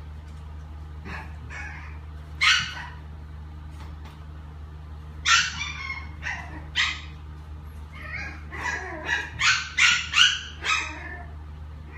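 Yorkshire Terrier puppy giving short, high yips and whimpers: a few scattered ones at first, then a quicker run of them over the last four seconds.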